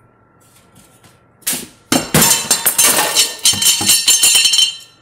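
Metal parts clattering and rattling as they are moved by hand: a dense, loud run of knocks and clinks that starts about a second and a half in, lasts about three seconds, then stops.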